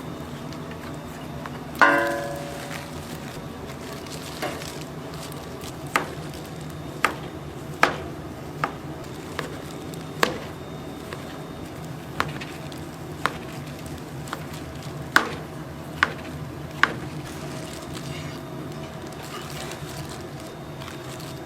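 Kitchen utensils clinking and tapping at irregular intervals over a steady background hum, with one ringing metal clang about two seconds in.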